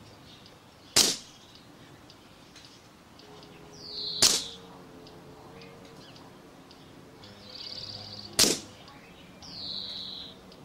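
Air Arms S400 pre-charged pneumatic air rifle fired three times, each shot a sharp crack, about three to four seconds apart. Short bird chirps and a trill come between the shots.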